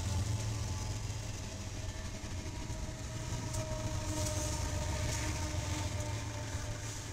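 Several diesel locomotives of a freight train passing close by, a heavy steady engine rumble with a faint steady whine above it.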